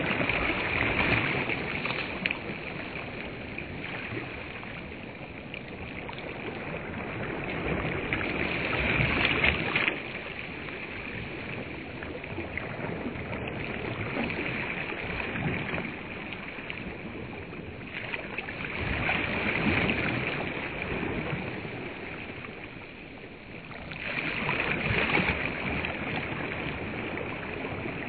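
Small waves washing onto a sandy reservoir shore, the wash swelling and falling back in slow surges every several seconds.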